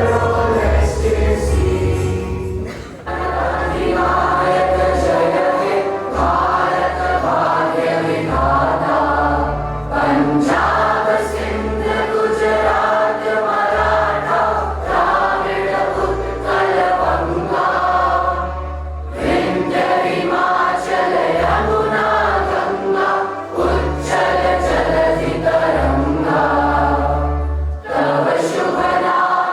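A choir singing a song with instrumental accompaniment and a steady bass line, in phrases separated by short breaks.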